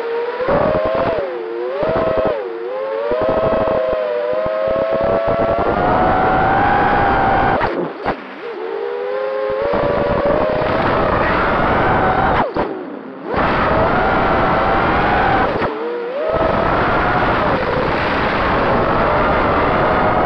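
Quadcopter's four brushless motors (2306 size, 2400kV) whining in flight, the pitch sliding up and down with the throttle over a rush of prop wash and wind. The whine dips or cuts out briefly about three times as the throttle is chopped, then comes straight back.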